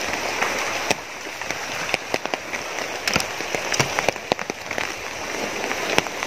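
Steady rain, with heavy drops tapping irregularly on an umbrella close overhead.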